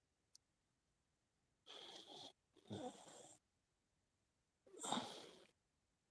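A person breathing out three times, short wheezy breaths about a second apart, the third the loudest, against near silence.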